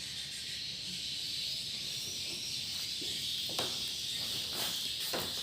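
A dense, steady high-pitched twittering of many swiftlets roosting inside a swiftlet house, with a few faint clicks.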